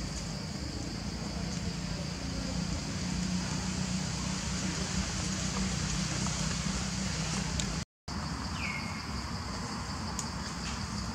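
Steady outdoor background noise with a high hiss and a low rumble. The sound cuts out briefly about eight seconds in, and just after it one short high squeak falls in pitch.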